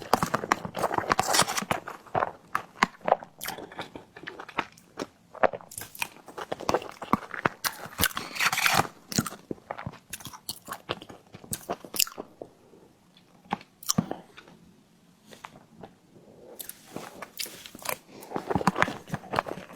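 Close-miked mukbang eating of a tiger skin dessert: bites, crunching and wet chewing with mouth smacks, easing off about two-thirds of the way through and picking up again near the end.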